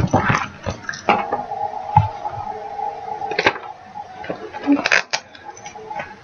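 Knocks, clatter and rustling as a wooden picture frame is set down and paper chart packets are handled. Under it, a faint steady tone from about a second in to past the middle.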